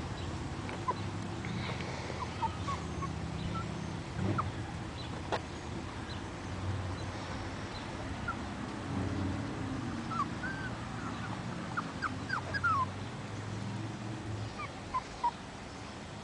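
Puppies whimpering: scattered short, high-pitched whines, several in quick succession about ten to thirteen seconds in.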